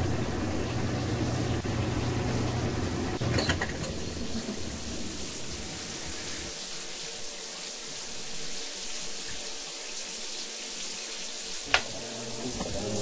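Washing machine filling with water: a steady rush of water. A low motor hum stops about three and a half seconds in, and there is a single sharp click near the end.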